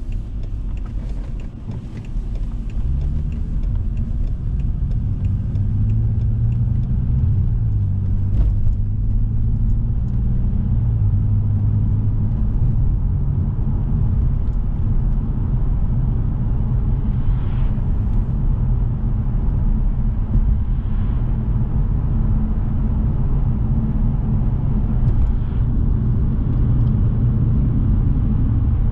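Inside the cabin of a 2006 BMW 630i: its inline-six engine and tyre road noise as the car pulls away and accelerates, the engine note rising a few seconds in and then holding steady at cruising speed. An indicator ticks at the start.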